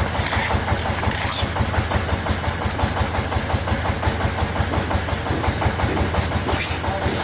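Engine of a small mobile concrete mixer pump running steadily, with a fast, even pulsing beat.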